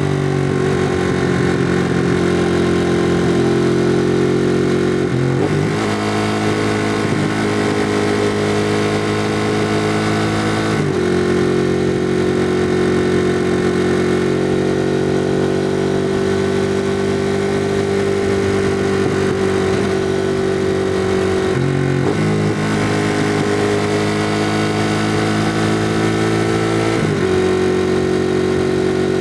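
2016 Ducati Monster 821's 821 cc L-twin engine through its stock exhaust, running steadily under way. Its note steps to a new pitch four times.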